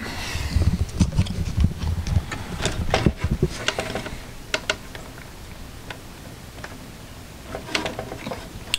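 Handling noise from the disassembled boombox: a quick run of clicks, taps and dull thumps over the first few seconds, then a few more clicks near the end.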